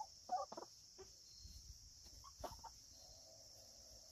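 Chickens clucking softly: a few short, faint clucks in the first second and a couple more around two and a half seconds in.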